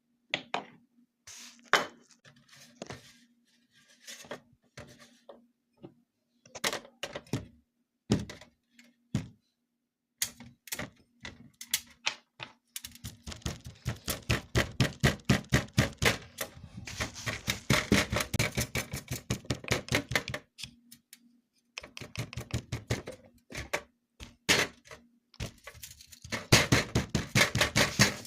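Rapid sharp clicking and tapping: scattered single clicks at first, then long dense runs of several clicks a second in the middle and again near the end.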